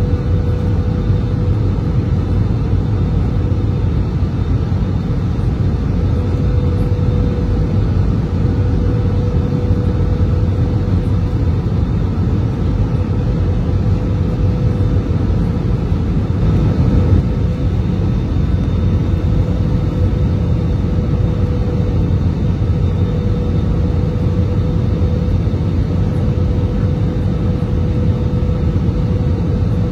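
Airbus A320-200 cabin noise during descent: a steady, loud rumble of engines and airflow with a constant hum running through it, and a brief swell about seventeen seconds in.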